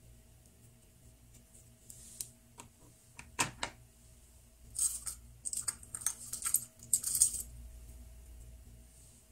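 Hands working a plastic Play-Doh mold and the freshly molded dough: a few light clicks, a sharper tap about three and a half seconds in, then a run of quick crackly clicks and rustles from about five to seven seconds.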